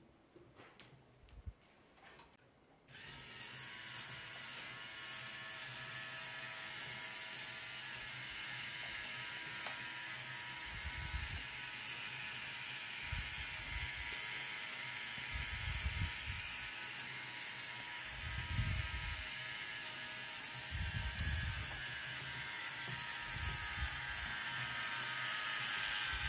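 Lego Technic automaton driven by a small Lego electric motor: a steady whirring and ratcheting clatter of plastic gears and linkage that starts about three seconds in. A few light clicks come before it, and occasional low knocks come as it runs.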